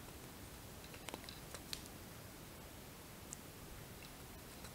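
Faint small clicks and ticks from hands working at a fly-tying vise while winding peacock herl onto a hook, a few close together about a second in and one more a little later, over a quiet room hiss.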